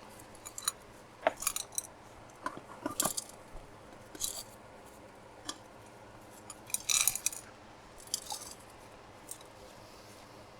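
Scattered light clicks, rattles and rustles of hands working at a small bonsai pot, adding and settling soil; the busiest rattle comes about seven seconds in.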